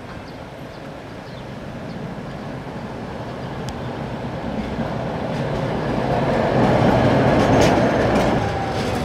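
Tatra K2YU articulated tram approaching and passing close by on street track. Its running noise grows steadily louder as it nears and is loudest just before it goes past near the end. A couple of faint clicks sound along the way.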